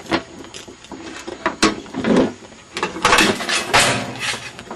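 Handling noise from the camera being moved: irregular rustling and scraping with a few knocks.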